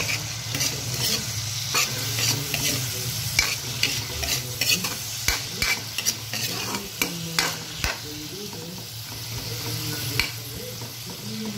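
Sliced chayote stir-frying in a metal pan: a steady sizzle with frequent sharp clicks and scrapes of a spatula against the pan, which thin out after about eight seconds.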